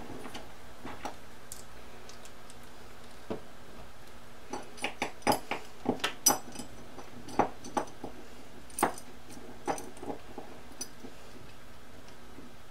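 Small metal clicks and clinks of M5 bolts and rail nuts being handled and started on each other by hand, scattered and busiest in the middle, over a faint steady hum.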